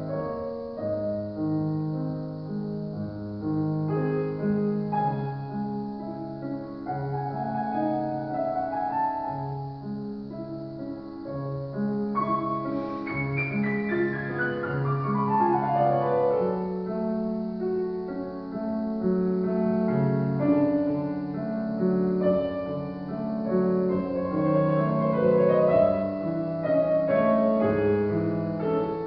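Solo classical piano on a grand piano: steady chords in the bass under a melody, with a fast descending run about halfway through.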